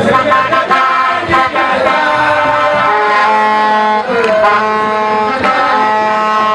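Loud music for dancing: long held melodic notes over irregular drum strikes.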